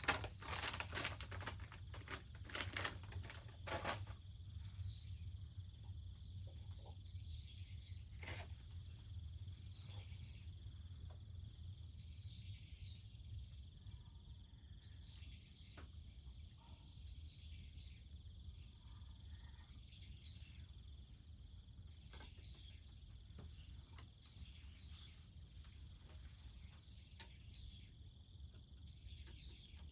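Wood bonfire crackling, with a quick run of pops in the first few seconds and single pops scattered after. Under it runs a steady high insect drone and a short falling call that repeats every two or three seconds.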